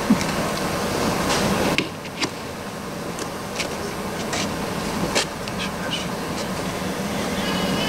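A bread knife sawing through the crust of a large round loaf close to the microphone, giving scattered crunching clicks over a steady hiss.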